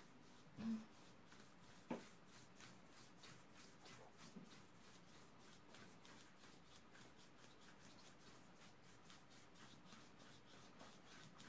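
Flat bristle brush scrubbing gouache across paper in faint, quickly repeated strokes. A dull thump and a sharp knock come near the start.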